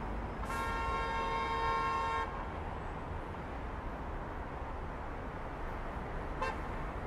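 A car horn honks once and is held for about a second and a half, and a short, fainter toot follows near the end, over steady road traffic noise.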